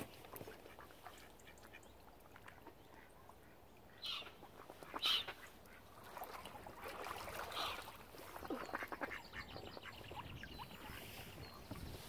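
Mallard ducks quacking: two short loud calls about four and five seconds in, then a run of quacks over the next few seconds, fading toward the end.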